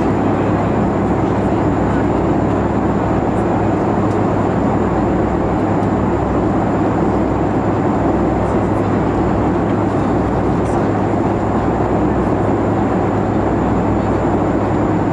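Steady cabin noise inside a Boeing 737-500 airliner in flight: the rush of air along the fuselage over the low drone of its CFM56-3 turbofan engines, with a faint steady high tone above it.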